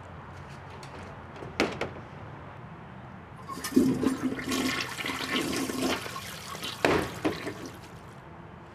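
A portable toilet's plastic door bangs shut, then a toilet flush rushes for about three seconds, and a second door bang follows near the end as it opens again.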